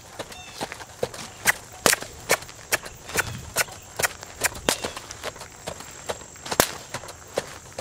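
Horse trotting on a packed sand-and-dirt surface: crisp hoofbeats in an even two-beat rhythm, a little over two a second.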